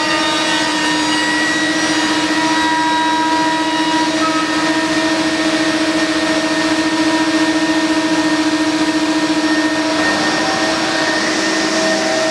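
CNC machining center's router spindle cutting a wooden stair tread, a steady whine of several held tones over an even hiss. The tones shift slightly about ten seconds in.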